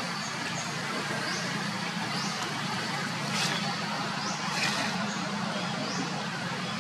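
Steady outdoor background hum with short high chirps repeating roughly once a second, and two sharp clicks near the middle.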